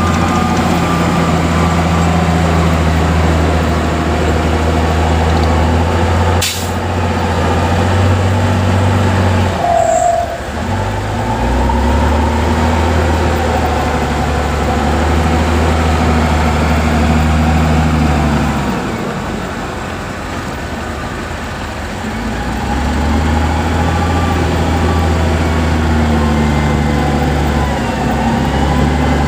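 Heavy diesel engine working under load, easing off briefly about ten seconds in and again for a few seconds about two-thirds through before picking up again. A single sharp clack about six seconds in.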